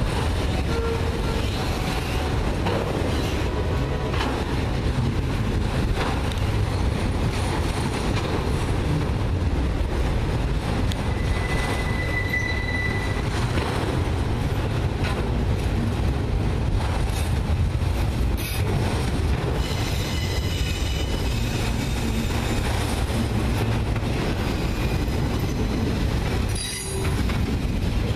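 Freight train cars, autoracks and then a covered hopper, rolling past on a curve: a steady rumble of steel wheels on the rails, with a brief high wheel squeal about halfway through.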